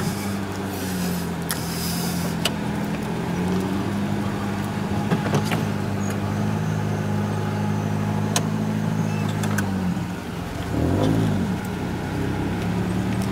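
Car engine running steadily while driving, heard from inside the cabin. Its pitch drops and changes about ten seconds in. A few sharp clicks are heard over it.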